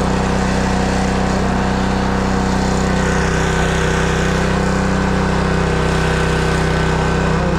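Honda GC190 single-cylinder engine on a Simpson pressure washer running steadily after a cold start. A faint high whine joins about three seconds in.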